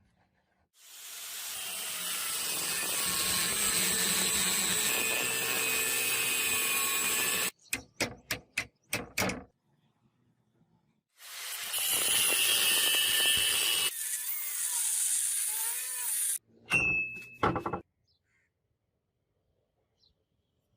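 A power tool runs for about six seconds, then a handful of sharp knocks, then the tool runs again for about five seconds, followed by a few more knocks.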